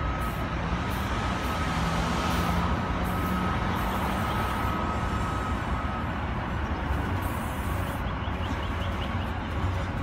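Aerosol spray paint can hissing in short bursts that stop and start, over a steady low rumble.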